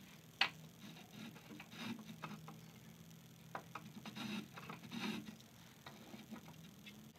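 Lie-Nielsen 60-1/2 rabbeting block plane taking short, light cutting strokes across the edge of a wedged tenon to chamfer it, heard as a sharp click about half a second in and then a scatter of brief scratchy strokes and clicks. A faint steady hum runs underneath.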